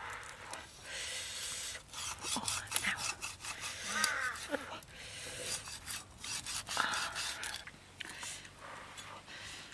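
A large kitchen knife sawing and chopping through the crisp, charred skin and meat of a grilled pig head, with irregular rough scraping strokes and clicks.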